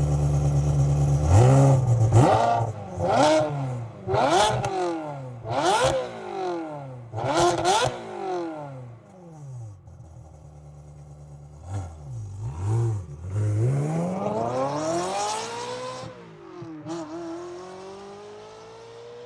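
Ferrari 360 Modena's 3.6-litre V8 idling, then revved in a quick series of sharp throttle blips, each rising and dropping straight back. After a short settle at idle come two small blips, one longer rev that climbs and falls, and a slow rise in revs near the end.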